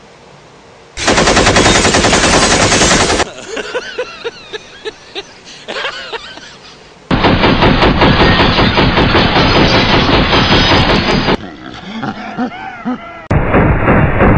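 Machine-gun fire in long rapid bursts, one starting about a second in and another about seven seconds in, with scattered single shots in the quieter gaps between them.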